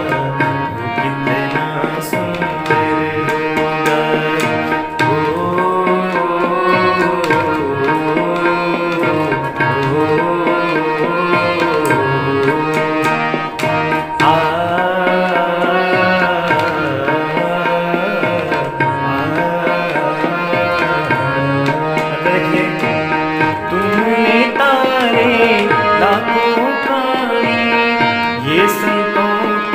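Harmonium playing a bhajan melody over a tabla rhythm in keherwa, the eight-beat taal.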